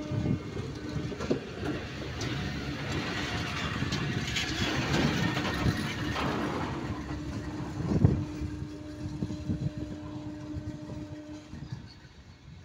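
Indian Railways passenger coaches passing close at speed: a steady rush and rattle of steel wheels on the rails, with knocks over the rail joints, the loudest about eight seconds in, and a steady hum held underneath. The noise eases away near the end.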